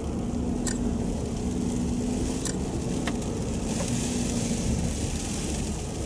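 Steady engine and tyre noise heard from inside a car on a snow-covered road, with a faint engine hum and a few sharp ticks scattered through it.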